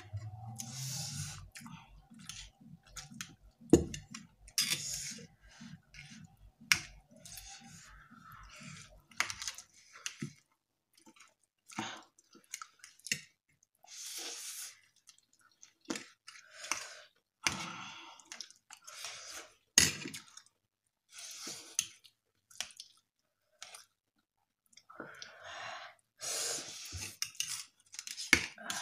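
Two people eating spicy instant noodles at close range: chewing, with metal forks clicking and scraping against the plates in scattered sharp knocks.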